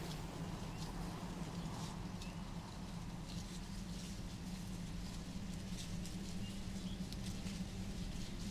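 Ambient sound-design bed: a steady low drone with faint scattered ticks and a few small high chirps over it.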